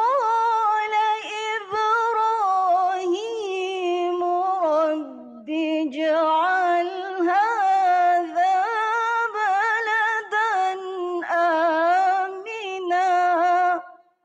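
A woman reciting the Qur'an unaccompanied in the melodic tarannum style: long held, ornamented notes, with a brief pause about five and a half seconds in, ending just before the close.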